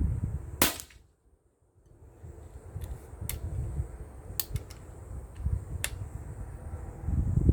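A single sharp shot from a Steyr LG110 air rifle about half a second in, followed by several lighter clicks of the rifle being handled and reloaded, with wind rumbling on the microphone.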